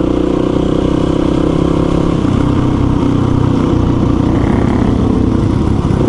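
Dual-sport motorcycle engine running steadily under way, its note shifting slightly about two seconds in.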